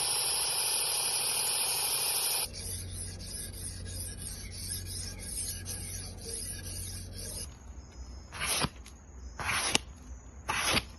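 Knife blade being sharpened: a steady grinding scrape for about two and a half seconds, then a quicker, quieter rhythmic scraping, then four separate sharpening strokes about a second apart.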